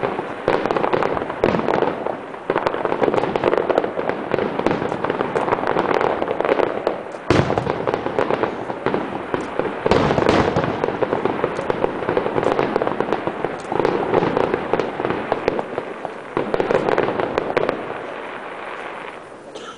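Aerial fireworks display: dense crackling and popping of bursting shells, with sharp bangs about seven and ten seconds in, dying away near the end.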